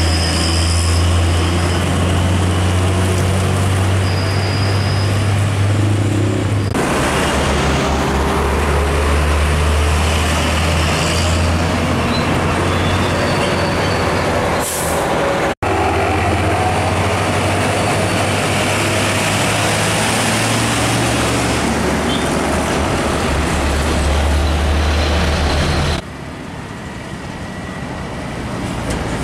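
Heavy diesel trucks, Hino 500s among them, driving past close by with a deep, steady engine drone and tyre noise, in several separate passes. About fifteen seconds in there is a brief air hiss.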